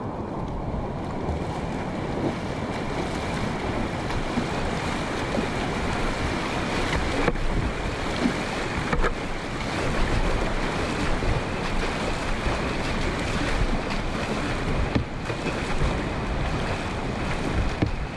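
Whitewater rushing and splashing around a kayak as it is paddled through a river rapid, a steady, unbroken wash of water noise.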